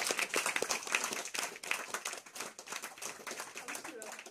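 Audience applauding with many rapid hand claps, the applause gradually fading away.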